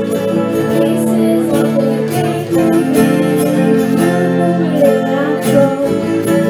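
Live band playing amplified through a PA, with acoustic and electric guitars and a drum kit.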